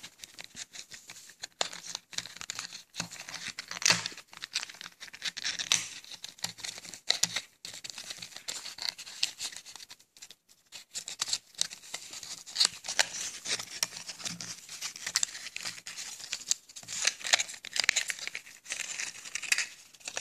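Hands tearing open a small cardboard box and crinkling the packaging inside: irregular rustling, crackling and tearing with sharp little clicks and a few short pauses.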